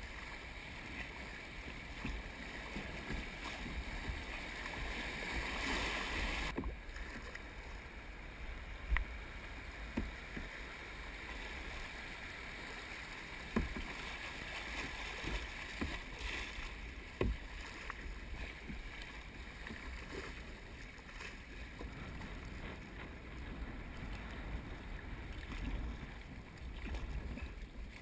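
Shallow river water rushing and lapping around a plastic sit-on-top kayak as it is paddled through riffles. There are a few sharp knocks from the paddle and hull. The rush of water is louder for about the first six seconds, then drops suddenly.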